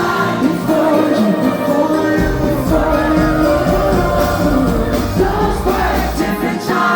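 Live pop-rock band playing with singing; a heavy bass line comes in about two seconds in.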